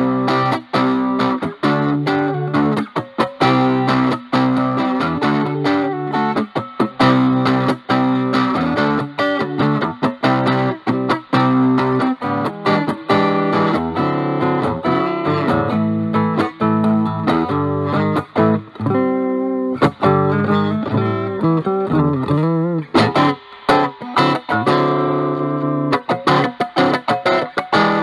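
Stratocaster electric guitar played through a Dunlop JDF2 Fuzz Face fuzz pedal with an NTE158 germanium transistor into the clean channel of a Vox Pathfinder 15R amp, the fuzz cleaned up. Continuous picked single notes and chords.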